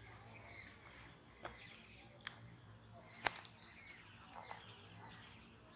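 Birds chirping repeatedly in short falling calls, with three sharp clicks, the loudest about three seconds in.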